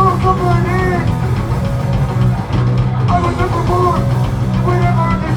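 Live heavy rock band playing loud, with distorted guitars, bass and drums, and a pitched melodic line that bends up and down over them.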